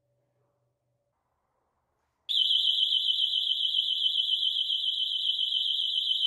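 Battery motion-sensor alarm's built-in siren going off, set off by a person moving in front of its sensor: a loud, high-pitched electronic siren that warbles rapidly up and down, starting suddenly about two seconds in after near silence.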